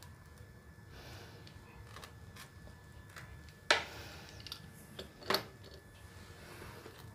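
A kitchen knife cutting through a pan-toasted bread omelette on a plate, with faint light clicks, then two sharper clicks of the blade against the plate, about halfway and a second and a half later.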